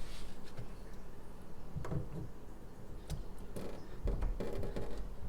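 A few light clicks and soft knocks as a replacement faucet cartridge is handled and fitted into the faucet's valve body.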